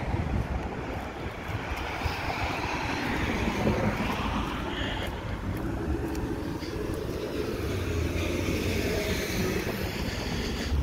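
Road traffic on the street alongside: a steady rush of passing cars that swells and eases as vehicles go by.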